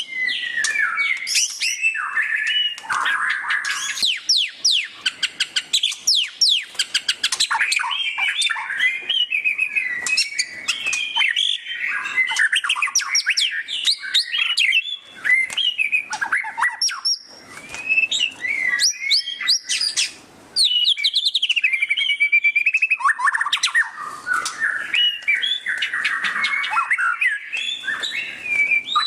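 White-rumped shama (murai batu) singing loudly and almost without pause in the rapid chattering 'ngeriwik' style: a dense run of fast whistled sweeps, trills and chips, broken by two short gaps past the middle.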